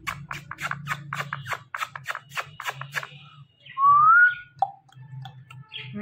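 A fast run of sharp clicks, about six a second, over a low steady hum for the first three seconds. About four seconds in comes one loud whistle rising in pitch, then a short note, from an Indian ringneck parakeet close up with its owner.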